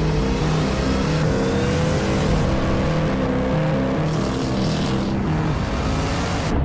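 Sports car engine accelerating hard, its pitch climbing steadily over a dense low rumble, then cutting off abruptly.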